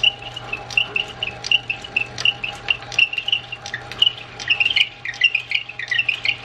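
Metal lathe turning down the hardened Morse taper shank of a drill bit, the cutting tool squealing against the steel in short, high squeaks a few times a second over the steady hum of the lathe.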